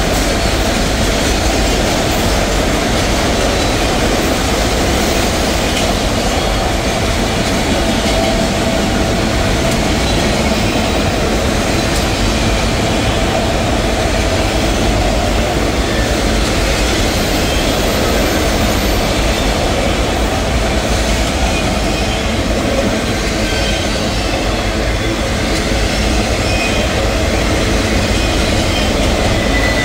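Steady rumble of a freight train's autorack cars rolling past, with steel wheels clattering on the rail and now and then a faint high wheel squeal.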